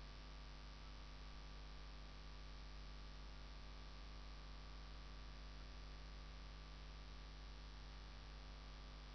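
Faint, steady electrical hum with a light hiss behind it, unchanging throughout: the recording's background noise, with no other sound.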